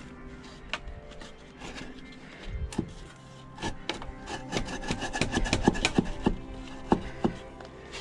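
A hand tool worked against wood in rasping strokes: a few scattered knocks at first, then a quick run of strokes in the second half, over faint background music.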